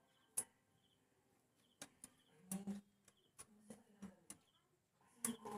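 Scattered light clicks and taps of hand tools working the valve adjuster and lock nut on a Yamaha Mio Sporty's cylinder head while the valve clearance is set, about ten in all, with a brief cluster in the middle and another near the end.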